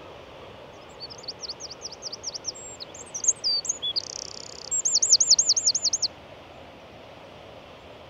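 A small songbird singing one high-pitched song of about five seconds: a run of quick repeated notes, a few varied notes, a short buzzy trill, then a louder run of repeated notes. Under it is a steady hiss of wind and surf.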